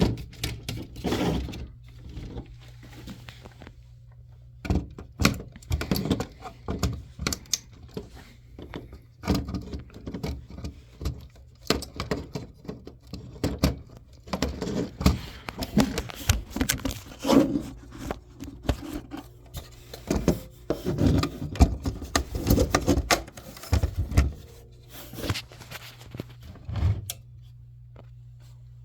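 Hard objects being handled: irregular knocks, clunks and scrapes, with a steady low hum underneath.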